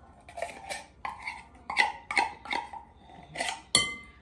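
A utensil knocking and scraping against a can and mixing bowl while sweetened condensed milk is emptied in: about eight short clinks, the last one near the end ringing like struck metal.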